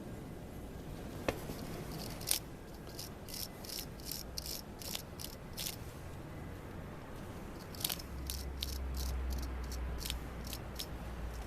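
A brush scrubbing a motorcycle alternator bolt clean, in quick scratchy strokes at about two or three a second. It comes in two runs with a pause between. This is the old threadlocker and dirt being cleaned off before the bolt is refitted with fresh threadlocker.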